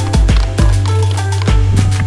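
Background music with a steady drum beat and deep bass notes.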